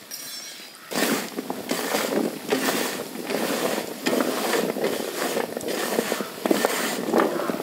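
Diced raw bottle gourd being tossed and mixed by hand in a large steel pan to coat it with roasted gram flour and spices. The pieces rattle and scrape against the metal in quick, busy strokes. There is a faint sprinkle of flour before the mixing starts about a second in.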